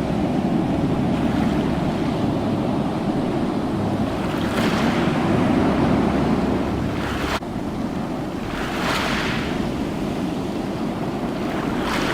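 Ocean waves washing ashore: a steady rush of surf with a wave swelling and breaking every few seconds, and an abrupt jump in the sound a little past halfway.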